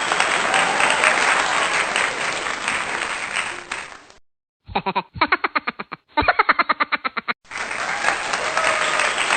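Crowd applauding and cheering, cutting off about four seconds in; after a brief gap comes a short stretch of a rapid, evenly pulsing pitched sound, and the applause starts again near the end.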